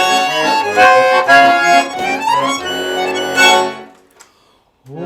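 Garmon (Russian button accordion) playing a quick instrumental introduction of runs and chords. It breaks off almost four seconds in, and after a brief pause a new held chord begins.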